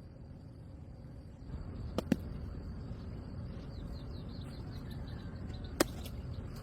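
Outdoor ambience with a low steady hiss and a small bird chirping quickly in the background, broken by sharp clicks: two in quick succession about two seconds in and one more near the end.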